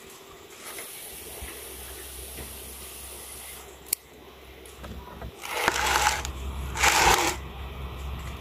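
Scissors snipping a bonsai branch with one sharp click about halfway through. It is followed by two louder rustling bursts about a second apart near the end.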